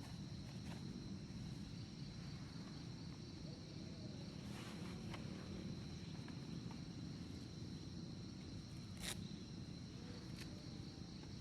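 Forest insects trilling steadily in a high, unbroken tone over a low background rumble, with a few sharp clicks, the loudest about nine seconds in.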